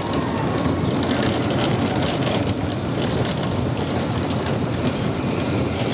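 Slinky Dog Dash roller coaster train running along its steel track at speed: a steady, loud rumble and clatter of wheels on rail, with wind rushing over the microphone.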